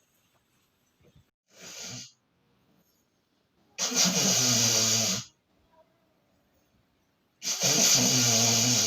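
A person snoring loudly: a short, softer snore about one and a half seconds in, then two long, loud snores of about a second and a half each, with a low buzzing rattle, about four and eight seconds in.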